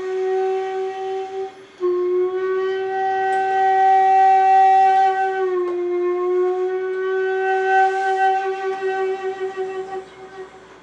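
Two shakuhachi bamboo flutes playing long held notes in unison. The note breaks off briefly under two seconds in and resumes, dips in pitch a little past the middle, and fades away near the end.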